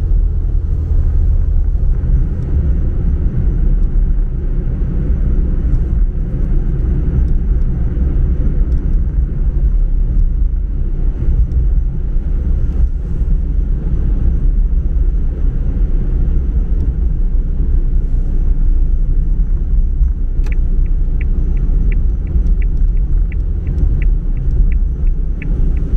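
Car driving at road speed heard from inside the cabin: a steady low rumble of engine and tyre noise. About 20 seconds in, the turn indicator starts ticking evenly, about three ticks a second, as the car nears its turn-off.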